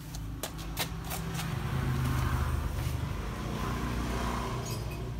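A motor vehicle engine running, with a steady low hum that grows louder about two seconds in and then eases off, with a few faint clicks in the first second.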